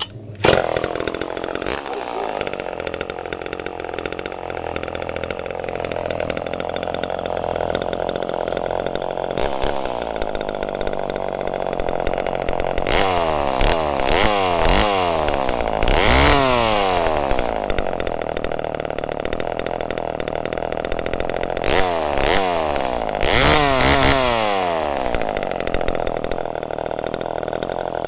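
Homelite Super Mini two-stroke chainsaw engine, running without bar and chain, starts about half a second in and settles into a steady idle. Twice, around the middle and again near the end, it is revved in a series of quick throttle blips, the pitch rising and falling each time.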